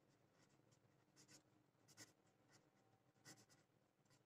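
Near silence with the faint, intermittent scratching of a pen writing on paper.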